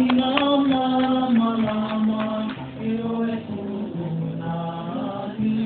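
Hula music: a man's voice sings a slow, chant-like melody in long held notes that step up and down in pitch.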